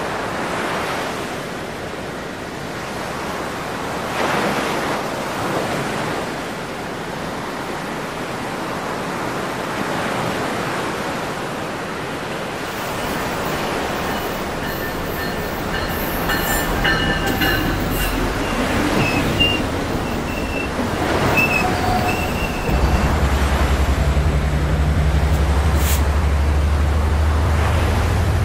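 Waves washing on the shore, then a passenger train coming along the seaside tracks. Its wheels squeal and click on the rails from about halfway, and the low drone of the diesel locomotive grows loudest over the last few seconds.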